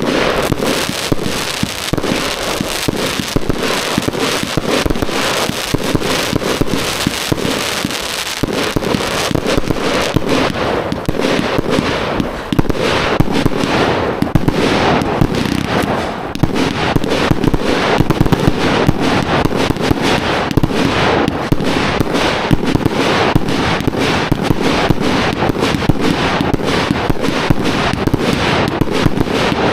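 Night Owl Grave Digger four-cake compound firework cake firing: a loud, continuous barrage of rapid shots and bursts that runs without a break.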